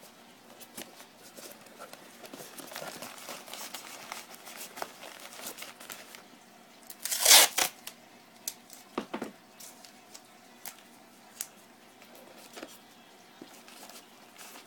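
Newspaper crinkling and tape being handled, with one loud rip of tape about seven seconds in, then scattered light clicks and rustles.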